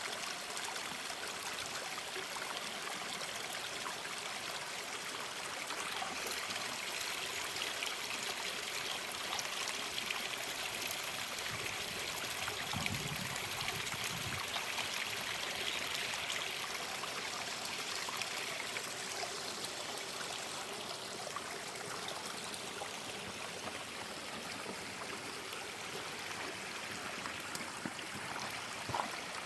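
Running water from a stream or spring, a steady rushing with some trickling.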